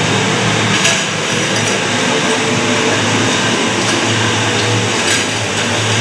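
Automatic magnetic can-washing machine running: a steady rushing noise over a low hum as water sprays over empty tin cans on the conveyor. The cans clink against each other and the rails, with two sharper clinks, one about a second in and one near the end.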